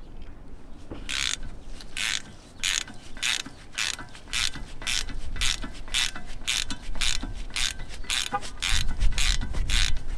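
Socket ratchet with a Torx T50 socket clicking in short back-and-forth strokes as it unscrews the single screw that holds the front brake rotor to the hub. The strokes come about twice a second and get quicker toward the end, and a low rumble joins near the end.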